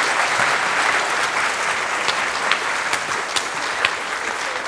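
Audience applauding, a dense spread of many hands clapping, with a few sharper single claps standing out.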